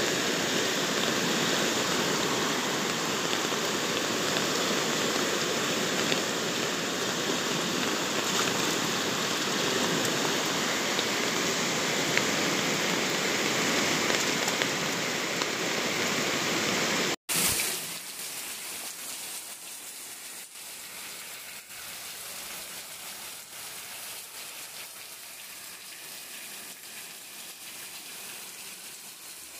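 Muddy river in flood rushing past, a loud steady rush of churning water. About seventeen seconds in it cuts off sharply, and heavy rain falling on a garden and yard follows, steadier and quieter.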